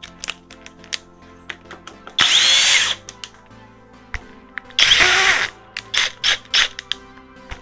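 Cordless impact driver running in two short bursts of under a second each, about two seconds in and again near five seconds, driving a screw into wood, with light clicks and knocks between the bursts.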